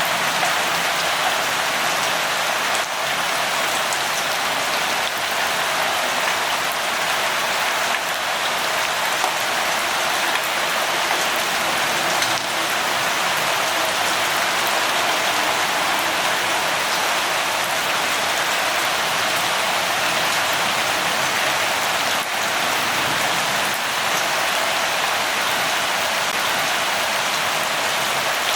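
Steady rain: an even hiss of falling rain, with scattered single drops ticking through it.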